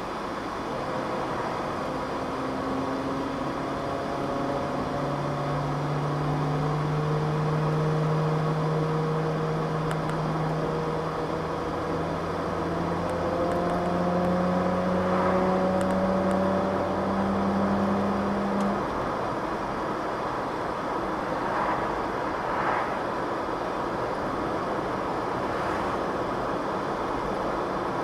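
Interior noise of a 1989 Mercedes-Benz 300 TE 4MATIC on the move: road and engine noise with a howl from the rear differential. The howl rises slowly in pitch as the car gathers speed and cuts off about two-thirds of the way through.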